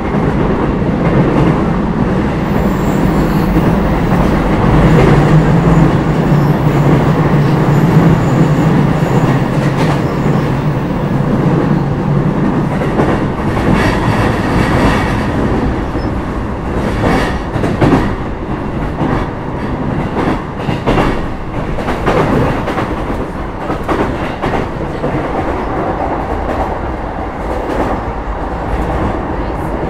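JR East E233 series 5000 subseries electric train running at speed, heard from inside the car: a steady low motor hum for the first twelve seconds or so that then fades, followed by wheels clattering over rail joints.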